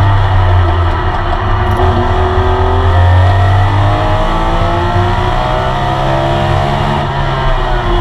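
Onboard sound of a classic Porsche 911 RSR's air-cooled flat-six racing engine under hard acceleration. Its pitch climbs steadily from about three seconds in, with a brief drop near the end that sounds like a gear change, over a steady low drone in the cabin.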